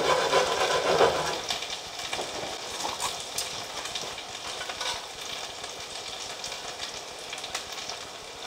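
Gnocchi sizzling as they fry in butter and garlic in a cast-iron skillet: a steady hiss with scattered pops and crackles, louder for the first second or so.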